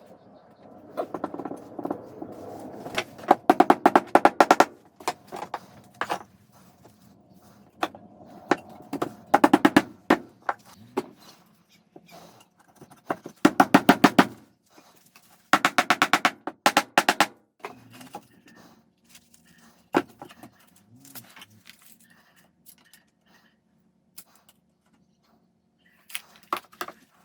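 Workshop noise from building with wood: several bursts of rapid, rattling knocks, with scattered single taps and short quiet gaps between them.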